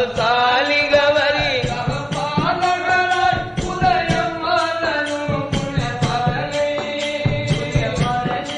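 Tamil Islamic devotional song music: a gliding melody line over regular drum beats.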